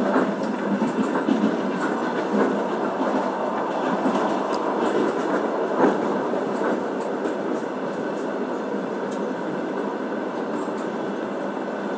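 A passenger train running along the track, heard from inside the carriage: a steady rumble of the wheels on the rails with scattered clacks, one louder knock about six seconds in.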